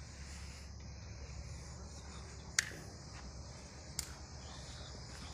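Faint outdoor ambience: insects chirring steadily at a high pitch over a low steady rumble, with two sharp clicks about a second and a half apart in the middle.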